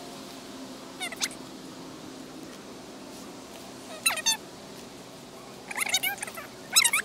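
Felt-tip pen squeaking on folded paper in short strokes while tree shapes are drawn: a brief squeak about a second in, another about four seconds in, and a run of squeaks between six and seven seconds.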